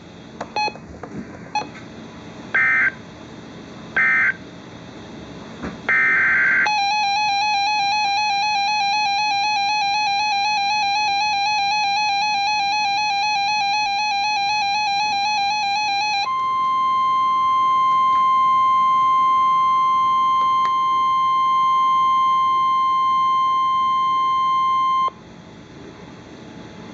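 NOAA Weather Radio Emergency Alert System tones. It opens with a few short screechy digital data bursts, the SAME header coding the next warning. About seven seconds in, the warbling two-tone EAS attention signal starts and runs for about ten seconds. It then switches to the steady single-pitch NOAA warning alarm tone for about nine seconds, which cuts off suddenly.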